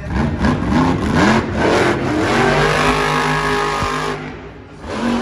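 Grave Digger monster truck's supercharged V8 revving in several quick rising bursts, then held at high revs for a couple of seconds before easing off and picking up again near the end.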